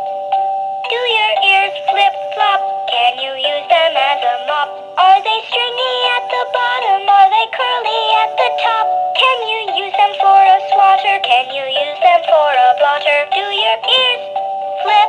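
Flappy the Elephant baby toy playing a children's song: an electronic tune with a synthetic-sounding sung melody that runs on with only brief pauses.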